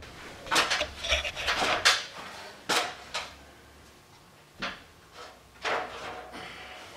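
Knocks, bumps and scuffs of a person climbing a stepladder onto a travel trailer's roof and onto wooden boards laid across it: a run of scuffing in the first two seconds, then four sharp knocks spaced out over the rest.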